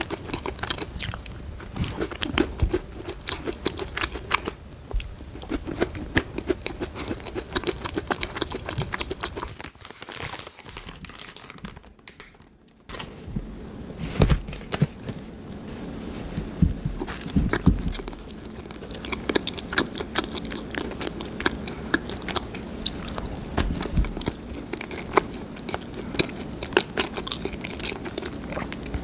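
Close-miked biting and chewing of a cookie, with sharp bite and crunch sounds. After a brief quiet break about ten seconds in, biting and chewing of a garlic salt bread roll continues.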